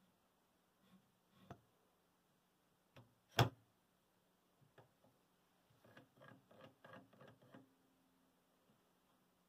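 Plywood escape wheel and frame parts being handled and fitted onto an axle: a few wooden knocks and clicks, the loudest about three and a half seconds in, then a quick run of light clicks between about six and seven and a half seconds.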